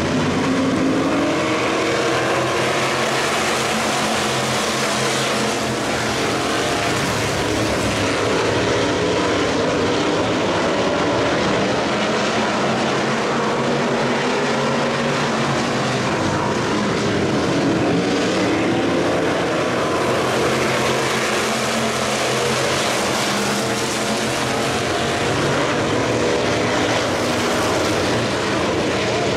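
A pack of factory stock dirt-track race cars racing, their engines running together in a steady loud drone whose pitch rises and falls as the cars pass.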